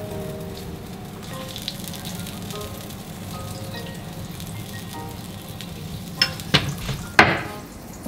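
Butter sizzling as it melts in a black iron frying pan over a gas flame, swirled around the pan. Near the end come a few sharp clanks, the loudest just after seven seconds, ringing briefly.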